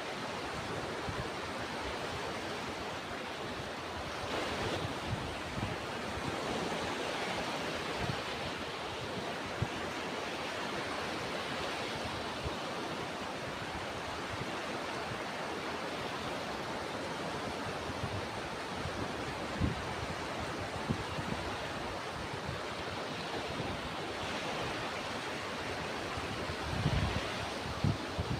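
Ocean surf washing in continuously, the hiss of the waves swelling and easing every few seconds, with a few low wind thumps on the microphone.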